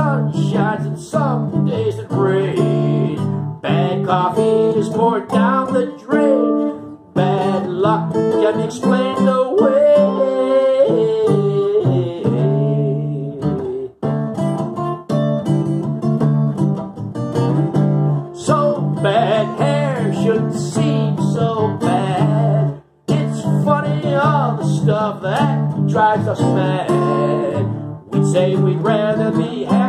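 Solo acoustic guitar instrumental break, a cutaway acoustic guitar picked and strummed in runs of notes, with short pauses about 7, 14 and 23 seconds in.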